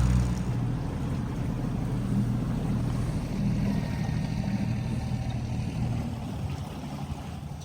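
Boat motor running steadily with water rushing along the hull, gradually getting quieter and dying away near the end.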